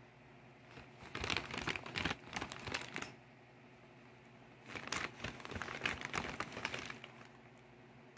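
Dry hay rustling and crackling as a guinea pig roots through it, in two spells of about two seconds each: one about a second in, the other near the middle.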